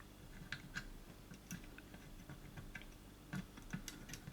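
Faint, scattered light ticks and taps of hand soldering work: a soldering iron and low-melt solder being worked on the joints of a circuit board, with a couple of slightly louder clicks near the end.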